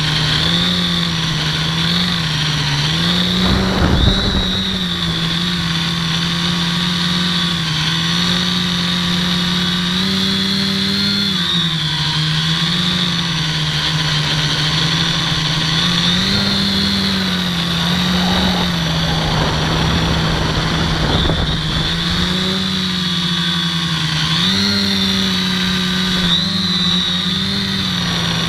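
HobbyKing Dead Cat quadcopter's brushless motors and propellers running at a steady pitch that rises and dips every few seconds as the throttle changes, heard from the camera on board. Short bursts of rushing noise come through about four seconds in and again around eighteen to twenty-one seconds.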